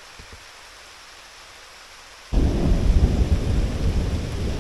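Steady rain, then about two seconds in a sudden loud thunderclap that goes on rumbling low and heavy. The thunder comes straight after a lightning strike: the storm is directly overhead.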